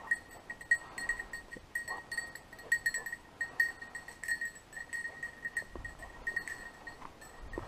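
A bell on a running English setter's collar, ringing in quick, uneven clinks as the dog moves through the cover. Woodcock hunters use such a bell to follow the dog out of sight.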